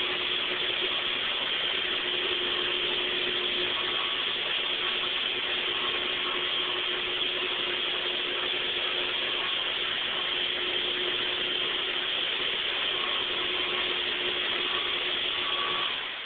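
MasterCraft rotary floor machine buffing a marble floor: a steady motor and pad whir with a constant low hum, dropping in level at the very end.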